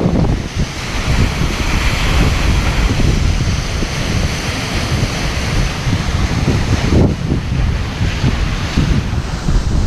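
Steady rush of a waterfall's falling water, with wind buffeting the microphone.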